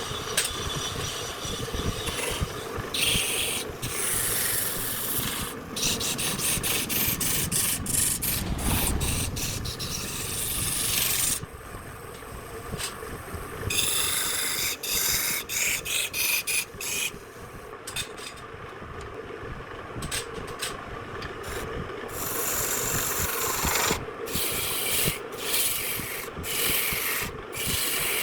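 Wood being scraped and rubbed on a wood lathe as the piece spins, in uneven strokes that keep starting and stopping, over a faint steady hum.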